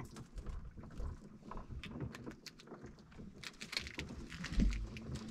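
Water lapping against the hull of a small wooden boat, with scattered light clicks and knocks from handling gear aboard and a low thump near the end.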